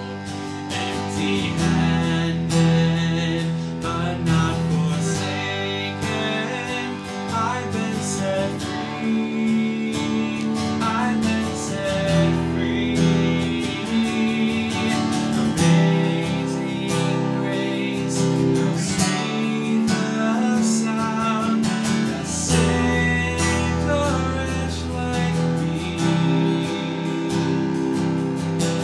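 A man singing a slow worship song to his own strummed acoustic guitar, with a bowed cello playing sustained low notes underneath.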